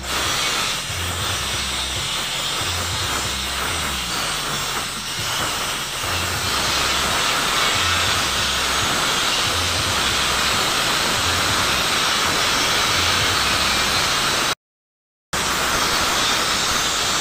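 A steady hiss, with sandpaper rubbing by hand over body filler on a car bumper and a low pulse about once a second. The sound drops out for under a second near the end.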